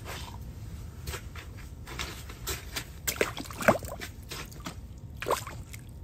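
Water splashing and sloshing in an ice-fishing hole as a fish is pulled up through it. There are irregular small splashes and ticks, the loudest a little past halfway and another near the end.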